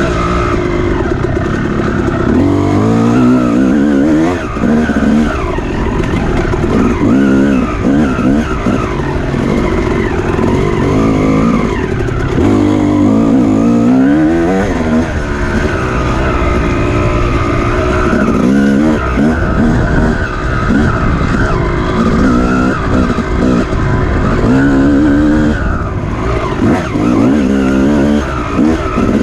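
Off-road dirt bike engine under hard throttle, its pitch climbing and falling back over and over as it revs up through the gears and drops off.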